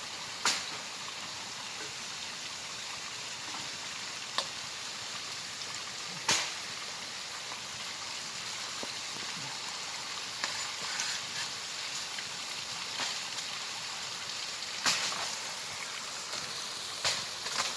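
Steady rush of running water, with a few short sharp knocks about half a second in, around six seconds in, and again near fifteen seconds in.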